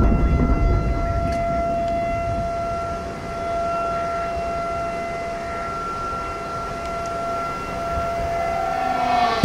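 Outdoor tornado warning siren sounding a long steady tone, its pitch lifting slightly near the end, over a low rumbling noise that is loudest at the start.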